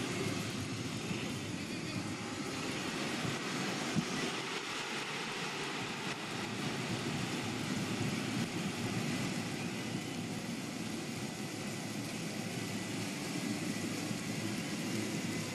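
Football stadium crowd cheering: a steady, continuous roar, with a single brief sharp knock about four seconds in.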